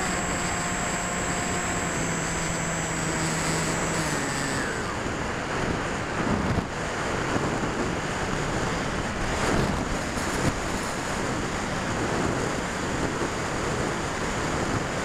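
Electric motor and propeller of an AXN foam model plane in flight, whining and stepping down in pitch until the throttle is cut about four seconds in. After that, only wind rushing over the microphone, swelling now and then.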